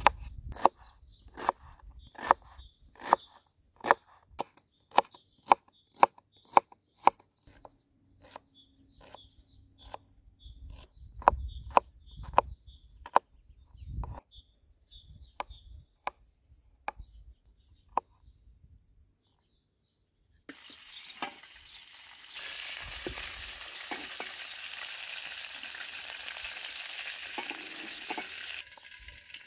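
A kitchen knife chopping onion and garlic on a wooden cutting board in a run of steady strokes, about one or two a second. After a short pause, quail pieces sizzle in hot oil in a wok over a wood fire, a steady hiss that stops just before the end.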